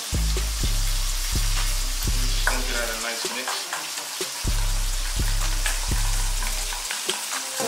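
Oil sizzling steadily in a hot cast iron pan, with light clinks of a fork stirring a dressing in a stainless steel bowl. Background music with a deep bass beat runs underneath.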